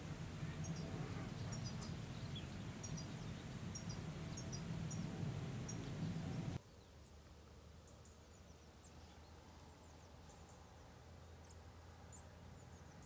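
Quiet outdoor ambience: a steady low rumble with faint, short, high chirps of distant small birds. About six and a half seconds in, the rumble cuts off abruptly, leaving quieter ambience with a few faint high chirps and ticks.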